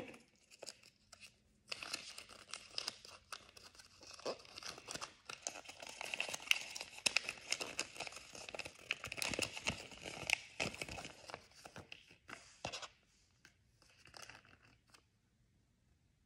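A small toy-packet wrapper being torn open and crinkled by hand: dense crackling and tearing that starts about two seconds in and stops about three seconds before the end, followed by a few faint rustles.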